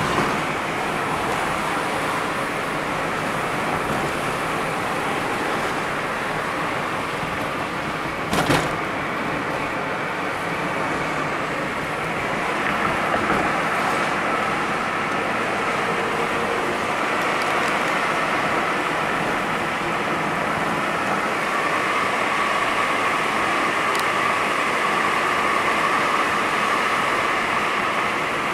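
Steady car noise heard from inside the moving car's cabin: engine and road noise. One sharp knock comes about eight seconds in.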